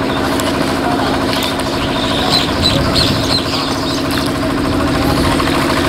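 Small boat engine running steadily at an even speed, a steady hum with a low drone underneath. A few short high chirps sound over it a couple of seconds in.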